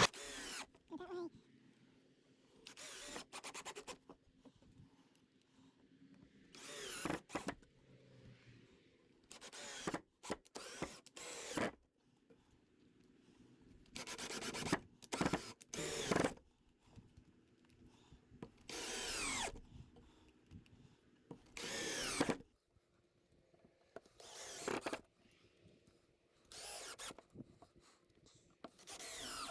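Cordless drill driving 2½-inch wood screws into pre-drilled 2x4s, in many short bursts of a second or less with pauses between them.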